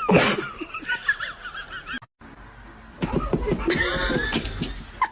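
A person laughing in quick, rising and falling bursts, then after a short break, more laughter.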